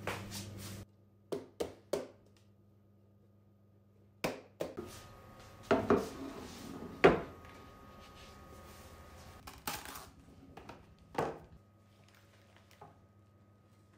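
Metal baking tray handled on a wooden table: a series of sharp knocks and clatters, three in quick succession about two seconds in, with the loudest knock about seven seconds in.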